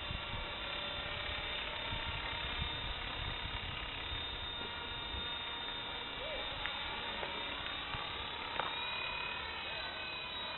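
Electric radio-controlled model helicopter in flight: a steady whine from its motor and spinning rotors, several thin tones held at an even pitch.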